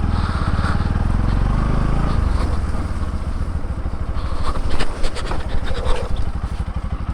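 Motorcycle engine running as the bike is ridden slowly, the throttle easing off about two seconds in. A cluster of sharp knocks and scrapes comes about halfway through.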